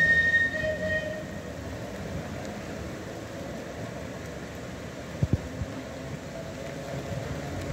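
A Manx Electric Railway tramcar approaching along the curved track, heard as a steady low running rumble. It opens with a short, high, loud toot lasting about a second, and there are two sharp knocks about five seconds in.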